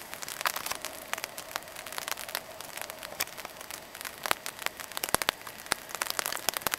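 Rain falling steadily, a dense patter of drops ticking on a tarp and the surrounding forest.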